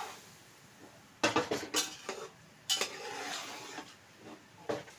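A metal spoon stirring raw rice in a metal cooking pot: a rough scraping of grains and spoon against the pot, broken by about four sharp clinks of the spoon hitting the pot's side. The raw rice is being mixed into a yogurt and spice masala.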